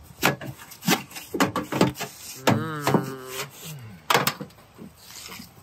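A stiff brush scrubbing and knocking inside a sheet-metal 8-inch vent hood: a string of short scrapes and taps as dirt and insect nests are cleared from an ERV's outside vent terminal.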